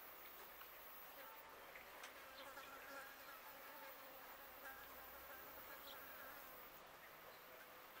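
Faint buzzing of a flying insect, wavering in pitch and strongest in the middle, over near silence with a few faint clicks.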